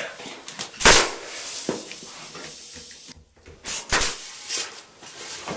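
Nails being driven through the tongue of tongue-and-groove wall boards: one loud sharp bang about a second in, then several quieter hits between about three and five seconds.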